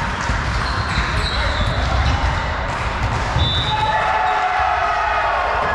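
Indoor volleyball rally: the ball being struck and thudding, players moving about the court and calling out, all echoing in a large sports hall.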